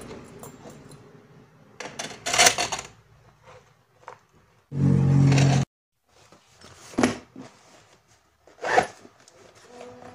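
Small objects handled close to the microphone: rustling and clicking of a zippered fabric pouch and metal binder rings, with sharp taps and knocks, loudest about two seconds in and near seven and nine seconds. About five seconds in, a short low buzz sounds for under a second and cuts off abruptly.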